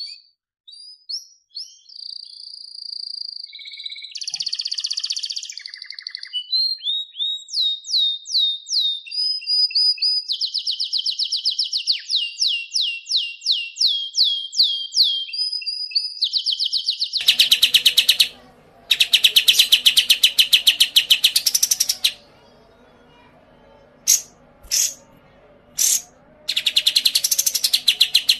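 Songbird song: a run of clear varied whistles, then quick falling notes repeated about three times a second. About seventeen seconds in it changes to dense, very rapid trills in bursts with short gaps, over a faint background hiss.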